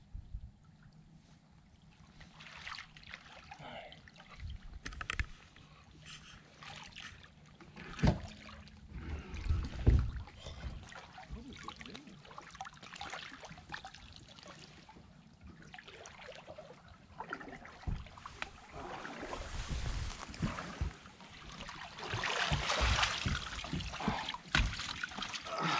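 Water splashing and sloshing around a small boat being worked through shallow creek water, with scattered knocks and clunks. There are two louder splashes about eight and ten seconds in, and a denser rushing noise builds over the last several seconds.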